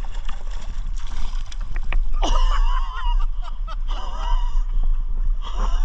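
A hooked brown trout thrashing and splashing in shallow river water as it is brought into a landing net, with many short, sharp splashes. A steady low rumble sits under it, from water and wind on a microphone held at the surface.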